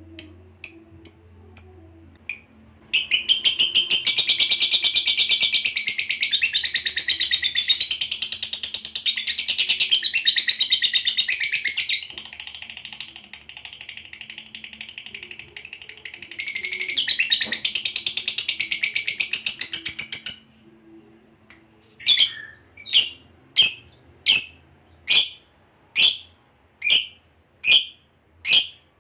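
Fischer's lovebird giving a long 'ngekek': a rapid, high-pitched chattering trill held for many seconds, softer for a few seconds in the middle. It stops suddenly, and single sharp chirps follow about once a second.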